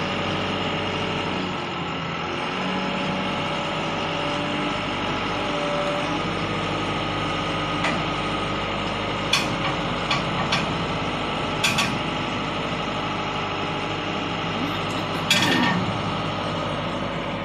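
Truck engine running steadily as the water tanker is moved slowly across the yard. A few sharp clicks come near the middle, and a short burst of hiss comes about 15 seconds in.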